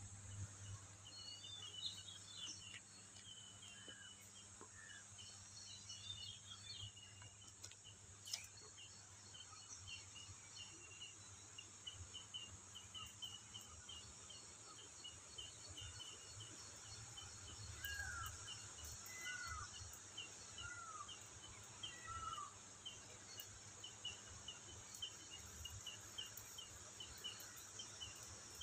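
Faint forest ambience: a steady high insect drone, with short chirps repeated about twice a second throughout and four falling bird calls a little past the middle.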